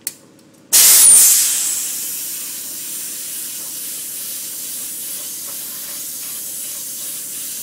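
Sprayer spraying water onto a chromed steel fender during the water-rinse step of the spray-chrome process. The steady hiss starts suddenly about a second in, is loudest at the start, then holds even.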